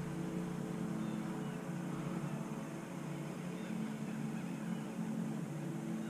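Electric bow-mounted trolling motor running, a steady low hum made of several tones that shift slightly in pitch partway through.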